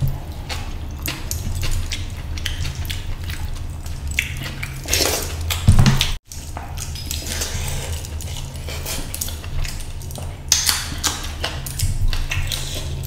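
Close-up eating sounds of a man eating curry and rice by hand: wet mouth smacks and chewing, with fingers squishing rice on the plate, making many short clicks. The sound cuts out completely for a moment just after the middle.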